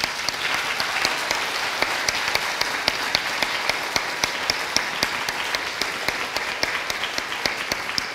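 A crowd applauding steadily, with many individual sharp claps standing out from the dense clapping.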